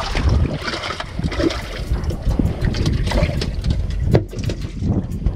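Wind buffeting the microphone on a fishing boat, with water splashing and a sharp knock about four seconds in.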